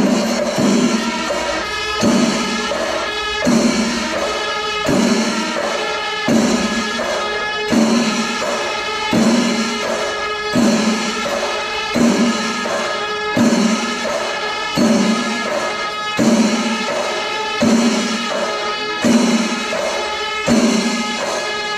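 Music with a steady beat: a percussive accent about every second and a half over sustained pitched tones.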